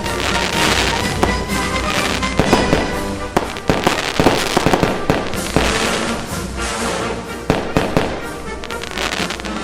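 Fireworks going off in quick succession, sharp bangs and crackling, over background music.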